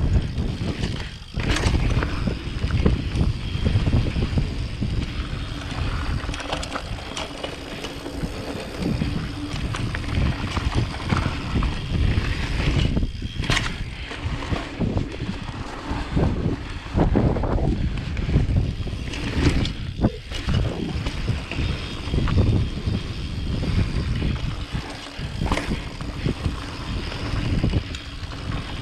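Mountain bike descending a downhill trail: wind rushing over the microphone and tyres rattling over dirt and rocks, with several sharp knocks from hard landings.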